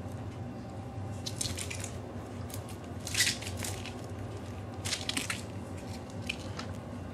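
Baby Holland lop rabbits moving about a playpen: brief rustles and scrapes of their paws on a fabric mat and a woven willow tunnel, the loudest about three seconds in, over a low steady hum.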